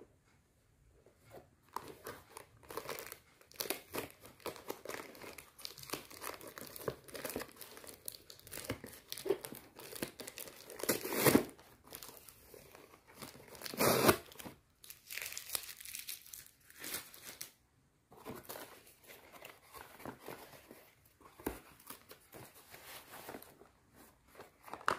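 Packing tape being peeled and torn off a cardboard parcel by hand, with the cardboard flaps rustling and creasing as they are pulled open; a run of short scrapes and crinkles with two louder rips about eleven and fourteen seconds in.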